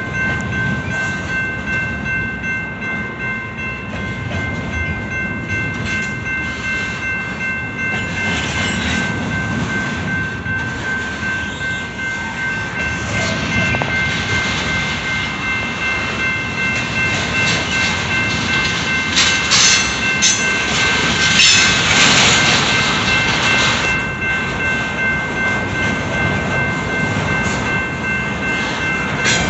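Double-stack container freight train rolling past: a steady rumble of steel wheels on rail with a pulsing, rhythmic clatter of the cars, over a steady high-pitched tone. It gets louder and harsher for a few seconds about two-thirds of the way through.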